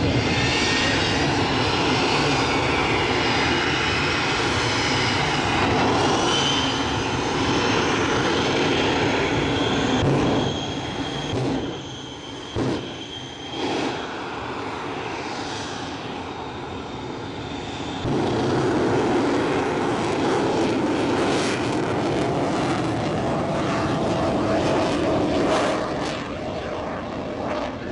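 Jet-powered semi truck's jet engines running loudly at the start line, with whining tones over the noise. The sound drops for a few seconds around the middle, then comes back up, with a series of sharp cracks near the end as the afterburners light for the launch.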